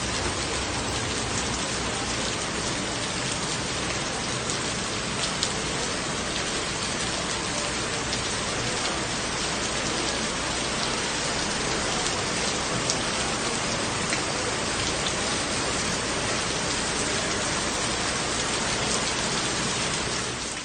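Heavy rain falling steadily, a dense even hiss with many individual drops ticking on hard surfaces.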